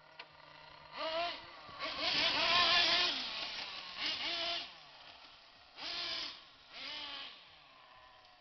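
Electric motor of a small radio-controlled car whining in five bursts. Each burst rises and falls in pitch as the car accelerates and slows. The longest is about a second in the middle.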